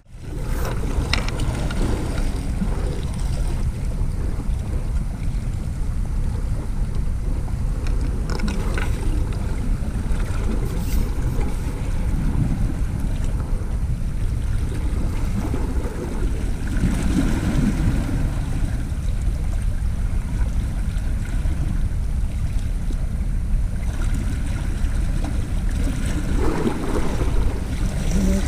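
Wind buffeting the microphone with a steady low rumble, over small sea waves lapping against shoreline rocks.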